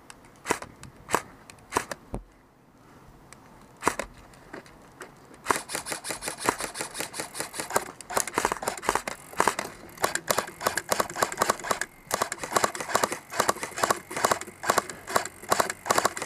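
Airsoft guns firing: a few separate shots, then from about five seconds in long stretches of rapid automatic fire, with a short break near twelve seconds.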